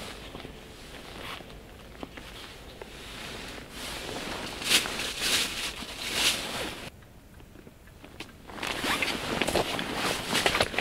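Irregular rustling and scraping handling noises, with two sharper strokes near the middle and a short lull before the rustling picks up again.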